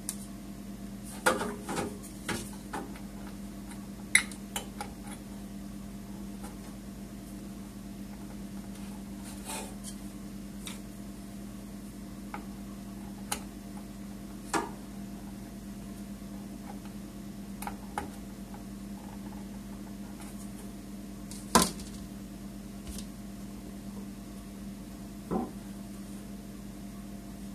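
Scattered clicks and light knocks of parts being handled inside an open Dell Inspiron 620 desktop case, about a dozen spread out, with a sharp one a few seconds in and the loudest about three-quarters through, over a steady low hum.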